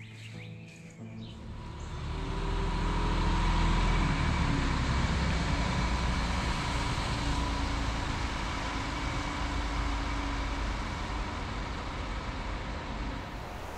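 Street traffic with a heavy truck's engine running, a steady low rumble under road noise that rises in about two seconds and then holds.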